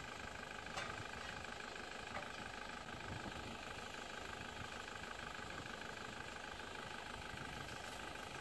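Steady outdoor background noise, with a couple of faint clicks about one and two seconds in.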